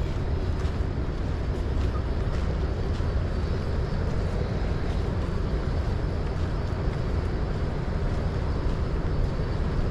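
Steady outdoor noise with a strong low rumble, like wind or distant traffic on an open-air walk, with a few faint light ticks.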